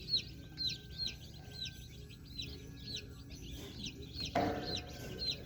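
Baby chicks peeping continuously: a rapid run of short, high chirps, each falling in pitch, about three a second. A brief lower sound comes about four and a half seconds in.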